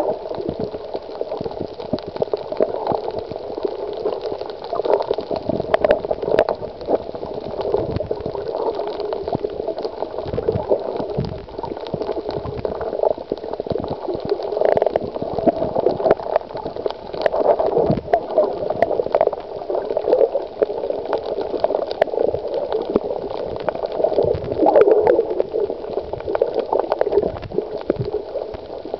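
Water moving around a camera held underwater: a steady, muffled water noise that swells and fades, with scattered small clicks.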